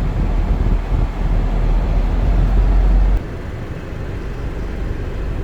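Road noise inside a moving car on a snowy highway: tyre and engine rumble with a heavy low drone that drops off abruptly about three seconds in.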